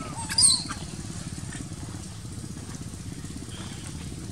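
A young macaque gives a brief, shrill squeal about half a second in, over a steady low engine rumble like an idling motorcycle.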